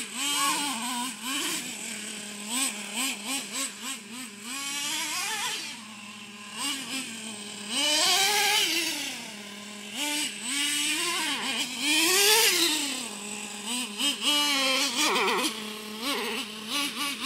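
Traxxas T-Maxx 3.3 RC truck's small two-stroke nitro engine running while the truck is driven, its pitch rising and falling in quick throttle blips over a steady idle. It holds two longer, louder high revs, about eight and twelve seconds in.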